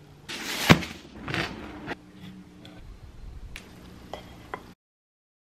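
Kitchen handling sounds: a plate and utensils scraping and clattering on a bamboo cutting board. There are two louder scrapes with a sharp knock in the first second or so, then a few light clicks, and the sound cuts off abruptly about a second before the end.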